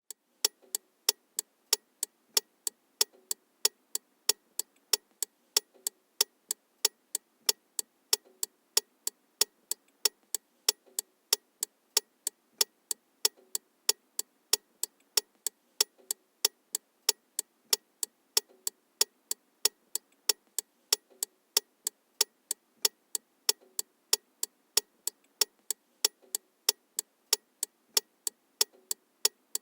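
Vehicle turn signal flasher clicking in a steady tick-tock rhythm, about two to three sharp clicks a second.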